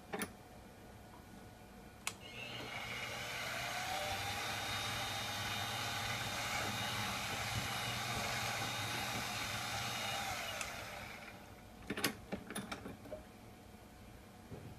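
Small milling machine's motor switched on with a click, spinning up and running steadily for about eight seconds as the drill bit bores through a polyurethane rod section, then winding down. A few sharp clicks and knocks follow near the end.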